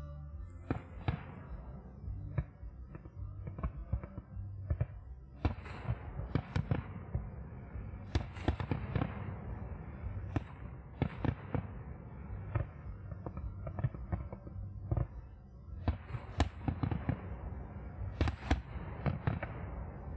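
Aerial fireworks shells bursting in quick succession, several of them followed by crackling. The loudest bursts come about five to eight seconds in and again near sixteen and eighteen seconds.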